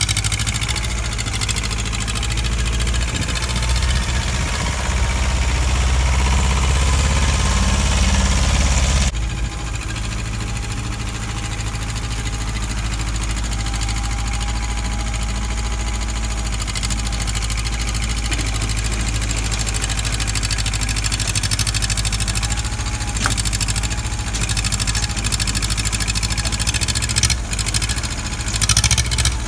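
Engine of a digging machine running steadily, with an abrupt change in its sound about nine seconds in and a few sharp knocks near the end.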